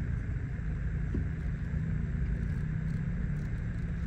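Car cabin noise while driving: a steady low rumble of the engine and tyres on the road, with a faint hum.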